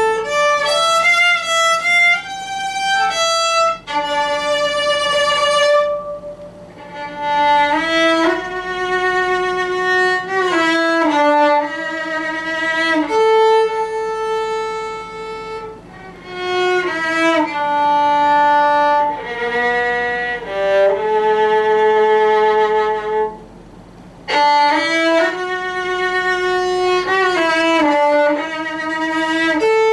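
Violin music: slow, sustained melody notes with vibrato, with a second lower part sounding together, easing off briefly twice before the melody resumes.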